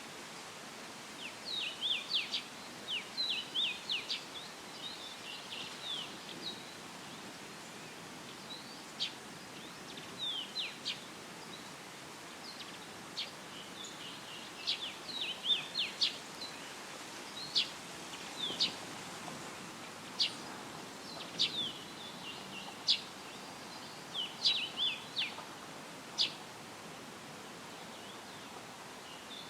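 Small songbirds chirping: quick, short, high notes in loose bursts, with pauses between, over a steady rustle of leaves in a light breeze.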